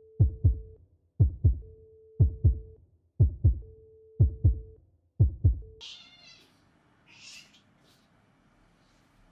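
Heartbeat sound effect: a lub-dub double thump about once a second, six times, with a faint steady tone between the beats. It stops just before six seconds in, then a cat meows once and a short breathy noise follows.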